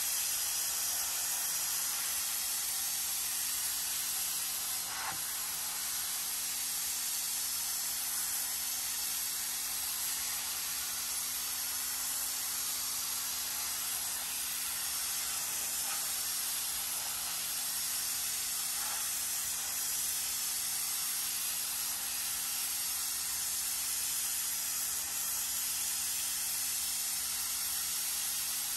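Pressure-washer wand spraying a high-pressure jet of water onto carpeted car floor mats: a steady hiss of spray.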